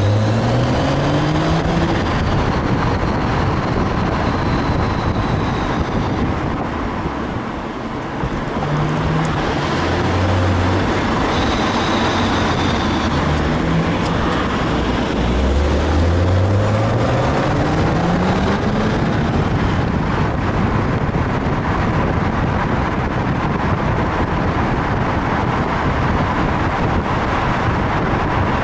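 BMW 135i's turbocharged straight-six with its DCT gearbox, the car accelerating several times, its engine pitch climbing with each pull, over steady road noise. A faint high-pitched whine rises and falls in the first few seconds and again about halfway through; this is the unexplained noise, which the owner reckons follows engine or gearbox speed rather than road speed.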